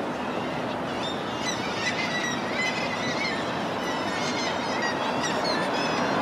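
Gulls calling: a run of short, high cries in quick succession starting about a second in, over a steady rumble of a train crossing the bridge and city traffic.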